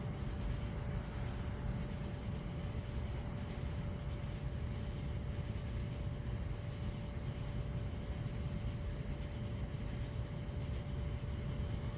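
Steady outdoor background rumble with no thunderclap, overlaid by a fast, even high-pitched chirping of about three to four pulses a second.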